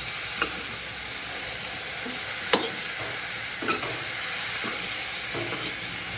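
Broccoli sizzling in a little oil in a pan while a metal spoon stirs it. The spoon knocks against the pan now and then, with one sharper knock about two and a half seconds in.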